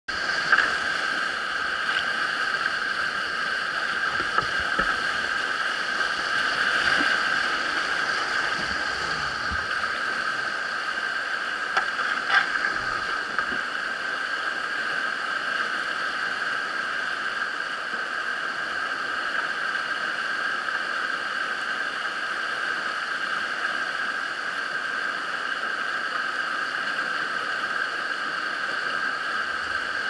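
Whitewater rapids rushing steadily, with a few sharp knocks, the clearest about half a second and about twelve seconds in.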